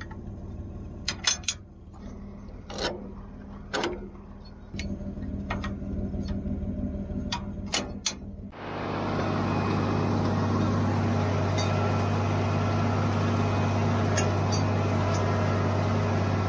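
Sharp metal clanks and clicks as the transport locks on a New Holland 499 haybine are unlatched by hand, over the steady hum of a tractor idling. About eight and a half seconds in, this gives way to the louder, even running of the tractor and haybine mowing thick grass.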